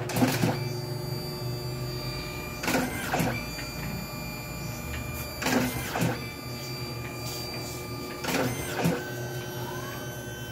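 DNP DS-RX1 dye-sublimation photo printer running: a steady machine whine with a brief noisy burst about every three seconds.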